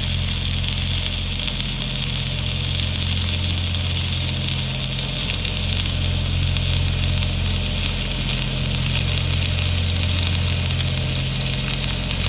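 Stick (SMAW) welding arc burning an E6010/E7010 cellulose electrode: a steady crackling hiss over the low, even hum of the welding machine.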